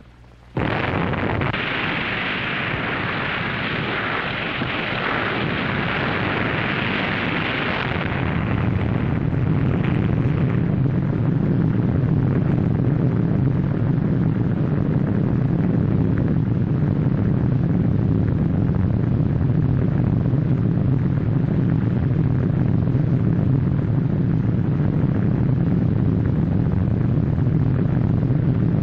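Explosion sound on the soundtrack for an underwater atomic bomb blast: loud noise comes in suddenly about half a second in, hissy for the first eight seconds or so, then settles into a steady low rumble.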